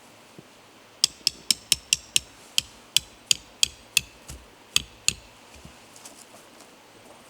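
A hammer striking metal about fifteen times in quick succession, three or four blows a second, each with a short bright ring.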